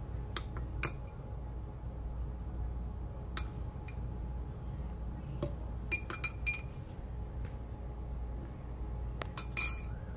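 Kitchen utensils and dishware clinking and tapping in short, scattered strikes as pineapple chunks are added to a cup, over a steady low hum.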